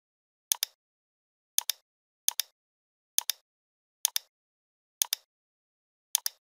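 Computer mouse button clicks, seven times at uneven spacing. Each click is a sharp press followed by a release about a tenth of a second later, with nothing else to be heard.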